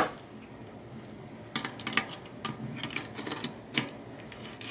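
Light, irregular metallic clicks and clinks as a bicycle cassette lock ring is threaded on by hand against the small cog of a 7-speed cassette. The clicks begin about a second and a half in.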